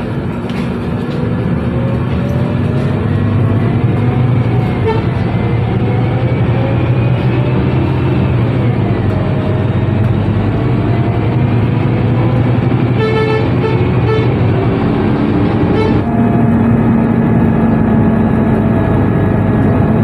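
Bus engine running, its whine rising and falling as the bus speeds up and slows. A short horn toot sounds about thirteen seconds in.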